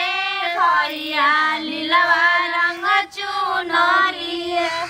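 Women singing a Bhojpuri folk song in long held, wavering notes, with a short break in the line about three seconds in.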